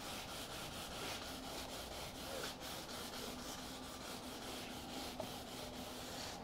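Sanding sponge block rubbed by hand over a CNC-routed wooden piano molding in quick, evenly repeated back-and-forth strokes, several a second, sanding off the fuzz the end mill left along one edge.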